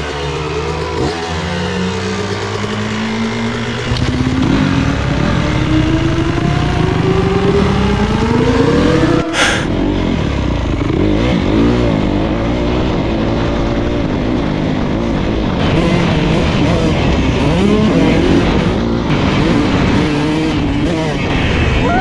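Motocross bike engines heard from the rider's seat. First the two-stroke KX 125 climbs steadily in revs over several seconds. After a sudden cut about nine seconds in, the Honda CRF250R four-stroke revs up and down again and again with throttle and gear changes.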